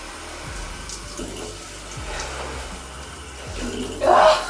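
Cold shower running, water spraying steadily into a bathtub, with a short loud yelp about four seconds in.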